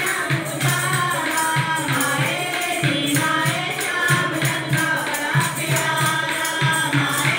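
Devotional kirtan to Mata Rani: a group singing a bhajan over a steady drum beat, with tambourine jingles on the rhythm.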